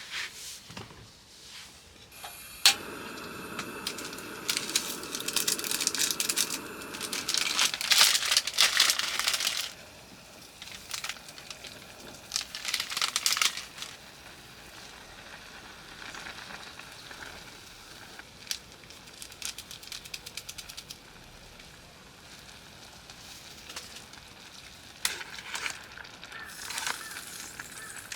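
Food frying in a pan: sizzling and crackling that starts about two and a half seconds in, louder in stretches around the middle and again near the end.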